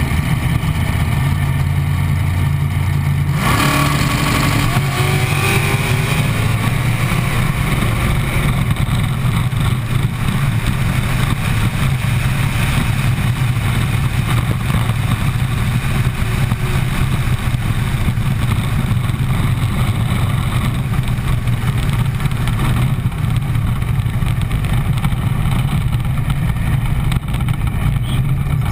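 Chevy V8 dragster engine heard from the car's own nose: running steadily at the starting line, then launching about three and a half seconds in, its pitch rising through the gears, and running on continuously down the track.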